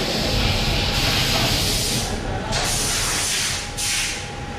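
A loud hissing spray, with its high rush dropping out briefly about two seconds in and again near the end.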